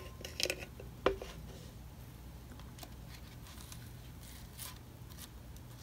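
Light clicks and a sharp tap about a second in as a plastic glue bottle is handled and set down on the bench, then faint scratchy ticks of a small metal tool spreading leather glue.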